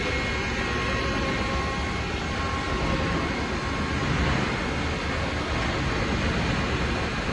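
Hitachi Seiki CNC lathe running: a steady mechanical hum and hiss with a faint high whine held at a constant pitch.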